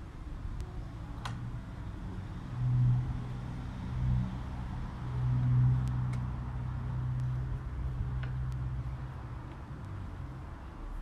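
A low motor hum that swells and eases off several times, loudest around the middle.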